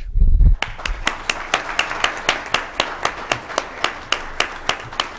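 Audience applauding, with sharp claps standing out at a steady rate of about four a second over the general clapping. It fades toward the end. A low thump comes just before the clapping starts.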